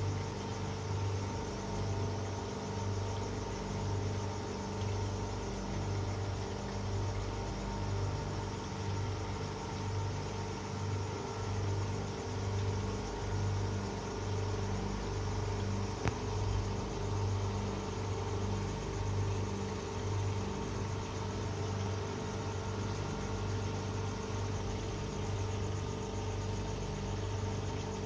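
A steady low mechanical hum, engine-like, that pulses slowly and regularly about once a second. A single short click about sixteen seconds in.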